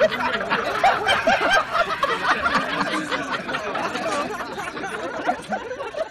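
A group of people laughing together, many voices overlapping, slowly dying away toward the end.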